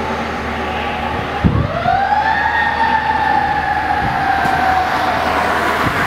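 Fire engine siren starting with a low thump about one and a half seconds in, rising quickly in pitch and then slowly falling. A low engine and traffic rumble sits underneath.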